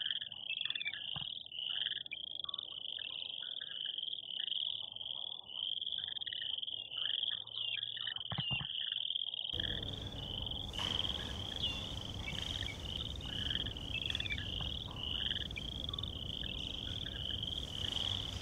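A high-pitched animal chorus: a rapid pulsing call repeating about twice a second, with softer, lower calls scattered between. About halfway through, a background hiss comes in under it.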